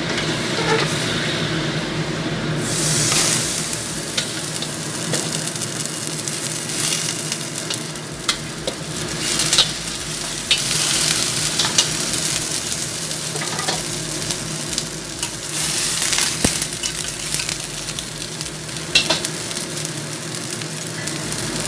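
Chicken in salty soy sauce sizzling in a hot pan, with the scrape and clink of a utensil stirring and shifting it. The sizzle grows louder about three seconds in, over a steady low hum.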